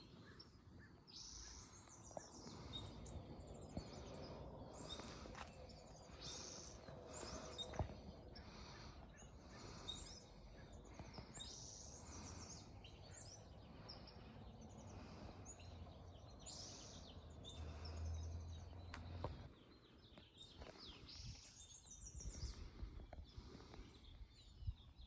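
Faint outdoor ambience: birds chirping and trilling repeatedly over a low background rumble.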